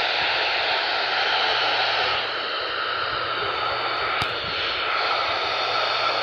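Steady radio static hiss from a weather radio receiver with no clear signal, with a faint click about four seconds in.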